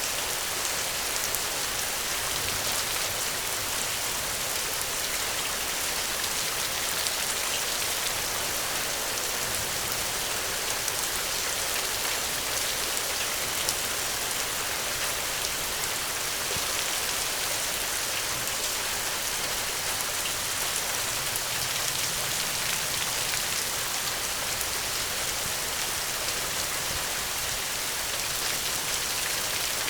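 Steady, even rain falling and pattering on a surface, with a dense hiss of many small drops.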